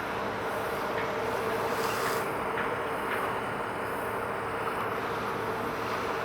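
Steady outdoor hum: an even noisy wash with one constant mid-pitched tone running through it, and a few faint short chirps.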